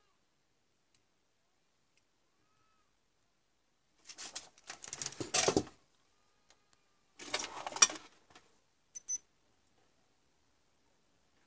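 Small tools being handled on a workbench: two bursts of clicking and rattling about three seconds apart, then a quick double click.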